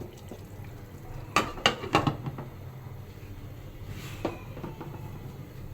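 Metal cooking utensil clinking against the pan of simmering shrimp curry: a quick run of three or four clinks about a second and a half in, then one more a little after four seconds.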